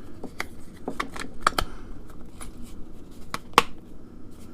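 Clicks and plastic handling noise as the faceplate cover is fitted onto a Ring Video Doorbell 2. One sharper, louder click comes about three and a half seconds in.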